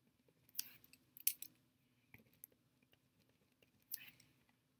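Pen writing on paper: a few faint, short scratchy strokes, the loudest a little over a second in and another near the end.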